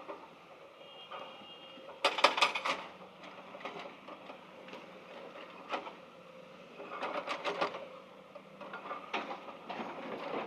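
Bursts of rapid mechanical clicking and rattling, three times, over a faint steady hum, with a short high beep about a second in.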